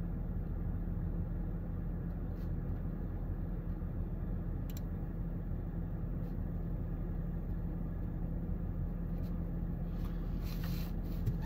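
Steady low hum of a car's engine idling, heard from inside the cabin, with a few faint light clicks and a little rustling near the end.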